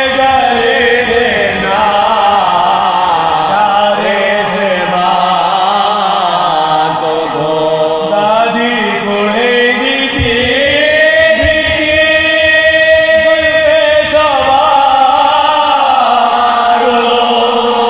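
A man's voice chanting soz, the Shia elegiac lament, in slow melodic phrases that glide and waver, with a long held note in the middle.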